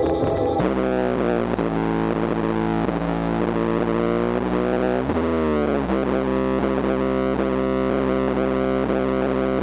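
Rock music with distorted electric guitar over strong, steady bass, playing through the 2002 Ford Focus's stock Mach audio system and its trunk subwoofer, newly hooked up to an aftermarket head unit and working.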